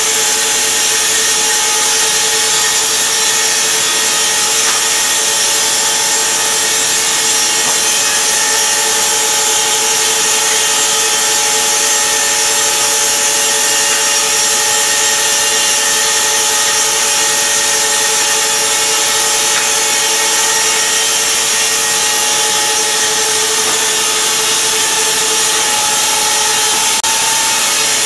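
Multiple-spindle vertical slicer running, its saw blades cutting wooden boards. It gives a loud, unbroken hiss with a constant whine underneath.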